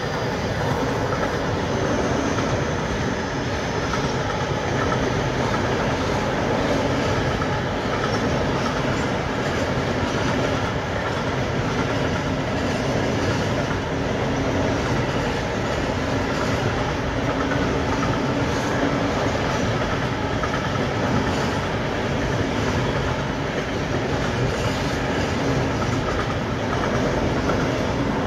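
Container freight train rolling past, its wagon wheels clattering over the rails in a steady, unbroken run.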